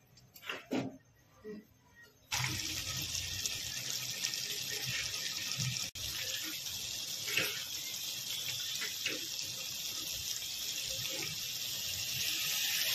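A few soft spatula stirs in a pan of Maggi noodles, then a steady hiss of the noodles boiling in their masala broth that starts suddenly a couple of seconds in, breaks off for an instant about six seconds in, and runs on.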